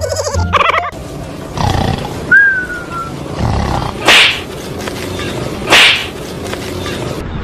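Two loud rasping roars, like a big cat's, about a second and a half apart, with a short falling squeal a little before them.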